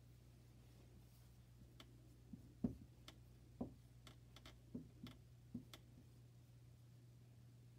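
Faint, irregular clicks and taps of a dry-erase marker on a whiteboard as numbers are written, over a steady low hum.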